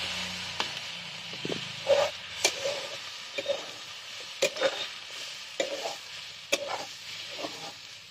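Potatoes and kundri (ivy gourd) sizzling in oil in a steel kadai while a metal spatula stirs them, scraping and clinking against the pan in irregular strokes. The sizzle is loudest at the start and eases off.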